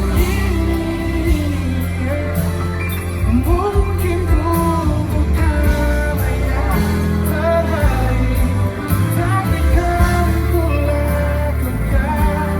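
Live pop ballad played by a band with steady bass, under a sung vocal melody.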